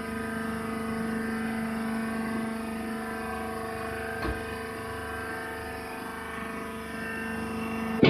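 Steady hum of a hydraulic baler's motor and pump running at a constant pitch, with a single light click about four seconds in.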